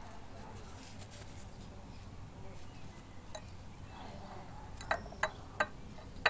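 A few light clicks and clinks, three close together about five seconds in, as fingers handle a fibre seedling pot and its paper on a ceramic plate.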